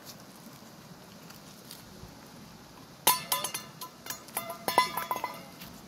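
A quick run of sharp clinks with short ringing tones, in two bursts from about halfway in, as hard objects knock together.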